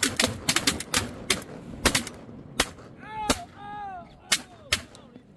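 Volley of shotgun blasts from several duck hunters firing at incoming ducks: a rapid string of overlapping shots in the first two seconds, then single shots spaced about half a second to a second apart.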